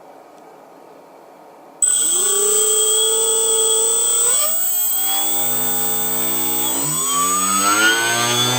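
CNC router spindle motor switched on about two seconds in and spinning up with a loud whine made of several steady tones and a high electrical whistle. Its pitch shifts twice as the speed changes, climbing near the end.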